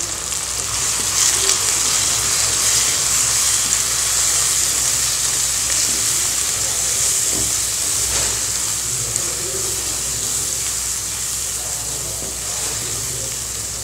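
Spice masala (mutton masala powder with onion, tomato and ginger-garlic paste) frying in hot oil in a nonstick pan: a steady sizzle, with a wooden spatula stirring and scraping through it as the masala is sautéed.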